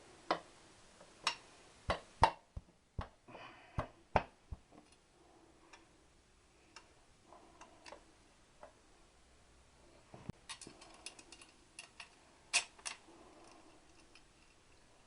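Irregular clicks and knocks of tools and parts being handled while exhaust fittings are bolted on loosely, a quick run of them in the first few seconds and another burst a little after ten seconds.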